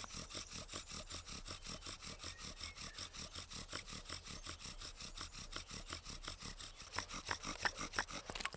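Bow drill worked at a fast, steady pace: the wooden spindle rubbing and squeaking as it turns in the hearth board, in a rapid, even rhythm of strokes, drilling to build a coal for a friction fire. A few sharper clicks come near the end.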